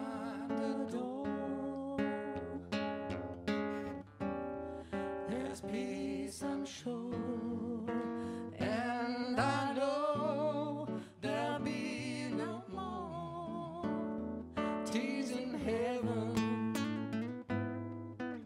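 Live acoustic band music: an acoustic guitar playing, with a wavering melody line carried above it.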